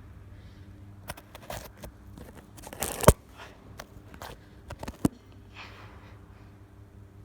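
Scattered knocks, clicks and scrapes from climbing a tower one-handed, with handling noise on the camera. The loudest is a hard knock about three seconds in, with another sharp knock about five seconds in.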